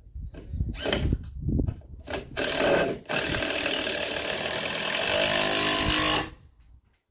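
Cordless drill driving screws into timber roof rafters: two short bursts, then a steady run of about four seconds with a brief break near its start, cutting off suddenly near the end.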